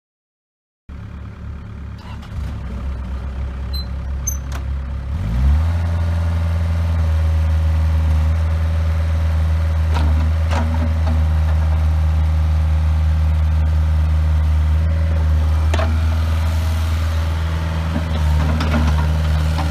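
Kubota diesel engine of a Bobcat 430ZHS mini excavator running at idle, then throttled up about five seconds in, its pitch rising quickly and holding at a steady higher speed. A few sharp clicks or knocks sound over the engine later on.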